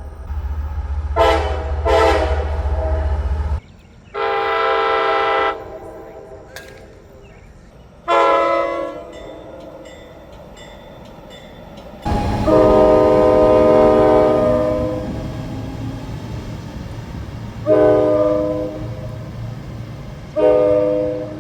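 Diesel locomotive horns blowing a series of chord blasts: two short toots, a longer blast, a shorter one, a long blast of about three seconds, then two more short blasts near the end. A low rumble of a passing train runs under the first blasts and comes back with the long one.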